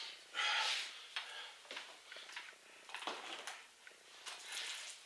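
Paint roller spreading a thick coat of RedGard liquid waterproofing membrane, a series of wet swishing strokes about a second apart as lumps are rolled out.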